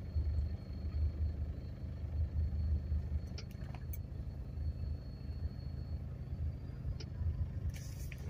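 Freight train of tank cars rolling past, a low steady rumble heard from inside a car, with a few faint clicks around the middle and near the end.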